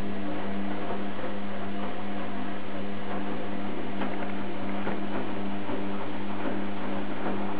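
Electrolux EWF 860 front-loading washing machine running: a steady hum from its motor with many small clicks and rattles over it.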